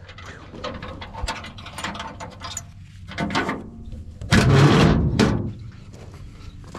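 Latch on the rear gate of a steel Big Tex dump trailer being worked open: a run of sharp metallic clicks and rattles, then a louder metal clatter about four and a half seconds in as the gate swings open.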